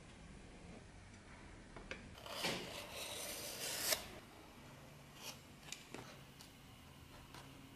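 Snap-off utility knife blade cutting through thick leather along the edge of a metal template: one scratchy cut of about two seconds, ending sharply. A few light clicks follow.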